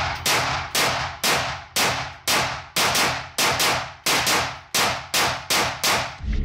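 CZ 805 Bren S1, a piston-operated semi-automatic 5.56 NATO carbine, firing a steady string of about a dozen shots, roughly two a second, each ringing off briefly before the next.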